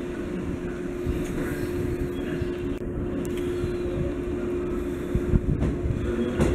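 Train running along the track: steady rumble with a constant hum, and a few louder knocks near the end.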